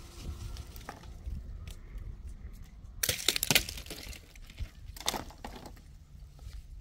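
Bursts of cracking and crunching over a low rumble: a loud cluster about three seconds in and a shorter one about five seconds in.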